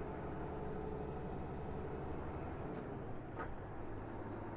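Peterbilt semi-truck's diesel engine running steadily under way, with road noise, heard from inside the cab.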